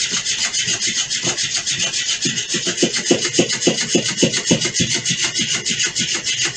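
Battery-powered Flippity Fish cat toy flopping on a tile floor, its tail slapping and rubbing the floor in a rapid, steady rhythm of several beats a second.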